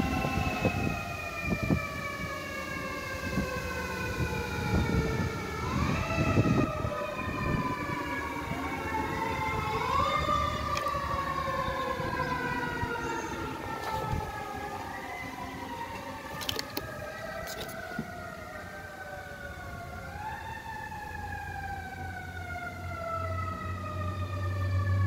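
Several fire apparatus sirens sounding at once, overlapping: each rises quickly in pitch, then falls slowly over several seconds, again and again. A low engine rumble builds near the end as the trucks draw closer.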